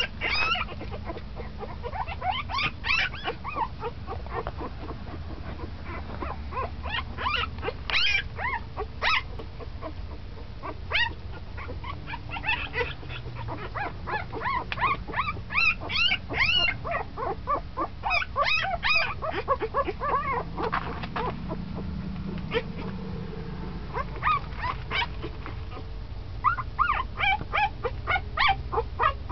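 Ten-day-old San'in Shiba puppies squeaking and whimpering: many short, high-pitched cries that rise and fall, coming in runs with pauses between.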